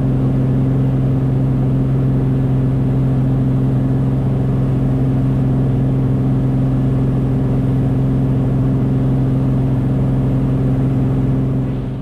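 Beechcraft Bonanza A36's piston engine and propeller droning steadily during the climb-out after takeoff, heard inside the cockpit with a deep, unchanging hum over wind noise. It fades near the end.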